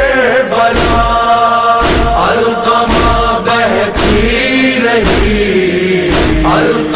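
A male reciter sings a Shia noha (Urdu lament) in long held, wavering notes over a steady deep beat about once a second.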